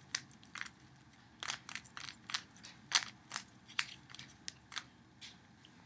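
Rubik's Cube layers being turned by hand, the same move sequence repeated over and over: a string of irregular plastic clicks, about two a second.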